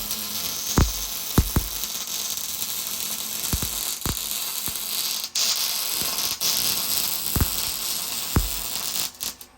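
Electric welding arc crackling and hissing steadily as a shifter bracket is welded, with scattered sharp pops; the arc cuts off shortly before the end.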